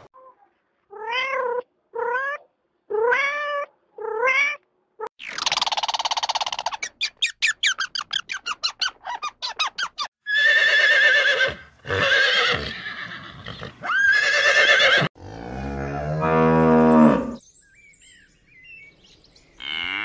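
A domestic cat meows four times, short rising-and-falling calls about a second apart. Then a horse blows and snorts in a fast fluttering run and gives three long whinnies, and a cow lets out one long, deep moo that falls in pitch.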